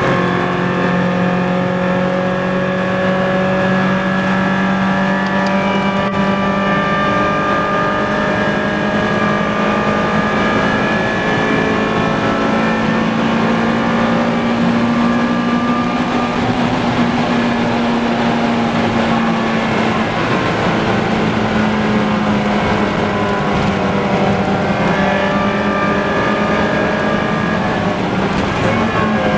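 Four-cylinder car engine held at high revs under full throttle, its note climbing slowly and steadily for about fifteen seconds, easing briefly about two-thirds in, then holding, with no gear changes.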